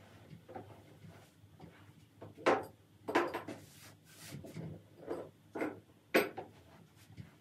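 Household objects being handled and set down: a series of sharp knocks and clatters, about six in the second half, with quiet room tone between them.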